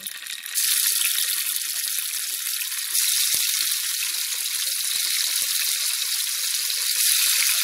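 Tofu pieces sizzling in hot oil in a frying pan as they are laid in one after another. The sizzle steps louder as more pieces go in, about half a second in, again about three seconds in and near the end, with scattered small pops and spatters.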